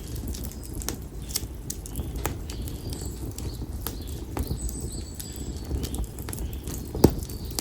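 Split konara oak firewood burning in an open bonfire, crackling with sharp pops at irregular intervals, the loudest a little before the end, over the low steady rumble of the flames. A thin high bird whistle is held for about a second midway.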